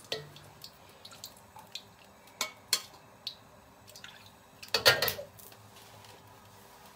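Metal ladle clinking and scraping against a steel wok as hot oil is scooped and poured back in, with a few light knocks and one louder scrape-and-splash about five seconds in. A faint steady tone runs underneath.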